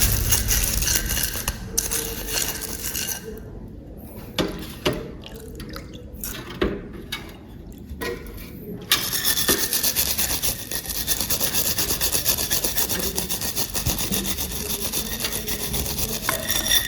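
Hand-tool scraping and rubbing on a small hard object, with a few scattered clicks partway through and then a run of rapid, fine scraping.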